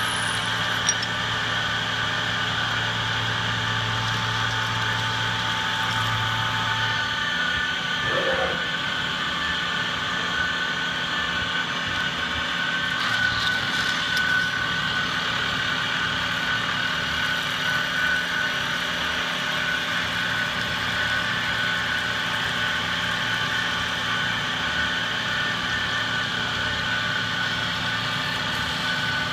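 Vertical milling machine cutting aluminium: a steady whine of several held tones over the noise of the cutter in the cut. A low hum stops about seven seconds in.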